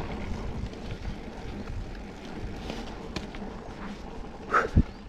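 Scott Spark RC mountain bike rolling down a rough trail: a steady rumble and rattle of tyres and frame, with wind on the microphone. About four and a half seconds in, a brief squeak is followed by a sharp knock.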